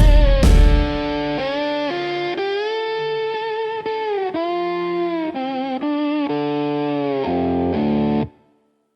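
Distorted electric guitar playing a lead line of long held notes with a wavering vibrato over a low bass part, opening with a loud low thump. The music cuts off abruptly a little after eight seconds, leaving silence.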